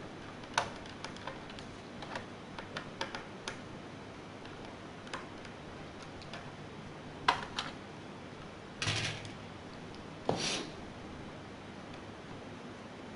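Scattered light clicks and taps of laptop parts being handled during disassembly, followed by two short scraping sounds about nine and ten and a half seconds in.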